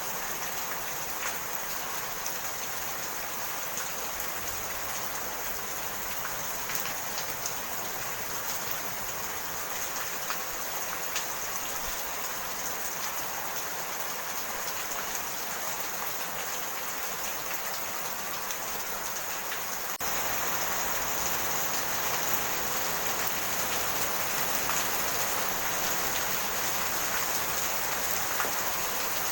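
Steady rain falling, with many small drop ticks through it; the rain gets a little louder about twenty seconds in.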